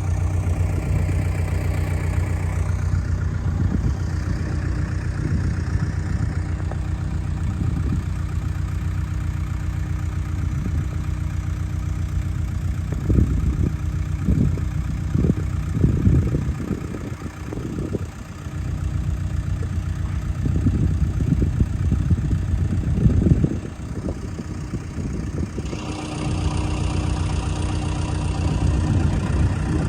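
JCB backhoe loader's diesel engine running steadily. Irregular low thumps and rumbles come through in the middle, and the sound turns brighter and hissier near the end.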